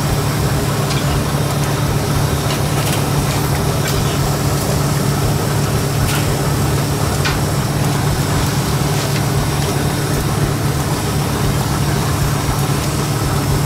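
Steady low engine hum, with a few faint clicks.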